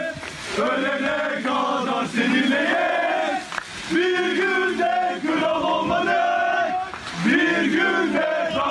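A crowd of football supporters chanting together in sung phrases, with short breaks between them.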